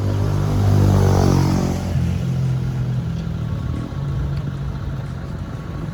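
A motor vehicle's engine passing close by, loudest about a second in, its note sliding down in pitch as it goes past, then a lower steady engine sound running on.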